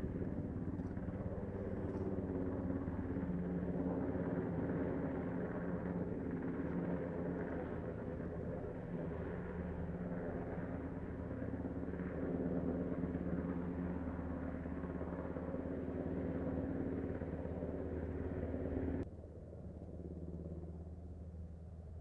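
UH-60 Black Hawk helicopter hovering low with a firefighting water bucket slung beneath: a steady drone of turbine engines and rotors. Near the end it drops suddenly to a quieter level.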